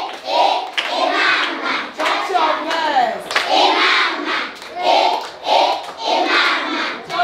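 A group of schoolchildren singing or chanting an action song together, with hand claps in between the sung phrases.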